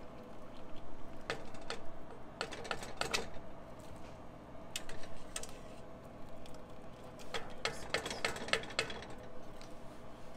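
Clusters of light clicks and taps as a wire-mesh spider strainer knocks against the rims of a steel pot and a stainless steel bowl while boiled shrimp are scooped out and dropped into the bowl.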